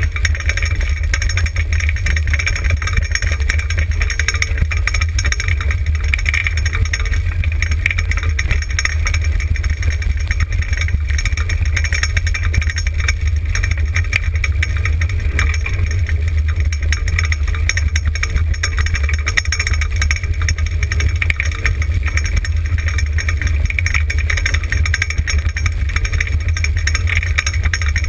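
Four-wheeled dryland dog-sled rig rolling fast over a dirt forest trail: a steady low rumble of the wheels and frame.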